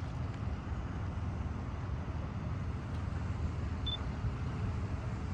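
Steady low rumble of wind buffeting the phone's microphone, with a brief thin high chirp about four seconds in.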